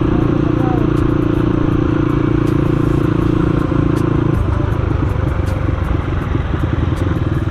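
Motorcycle engine running steadily on the move, its note changing about four seconds in.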